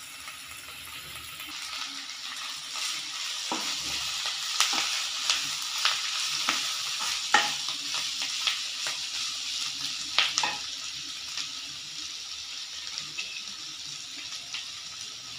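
Drumstick leaves and onions sizzling in a nonstick kadai as a wooden spatula stirs them, with scrapes and taps against the pan. The stirring clicks stop about ten seconds in, leaving a soft steady sizzle.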